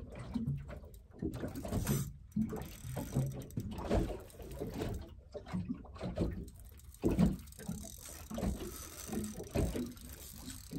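Spinning reel being wound in on a fishing rod, its gear mechanism running in uneven spells as line is retrieved.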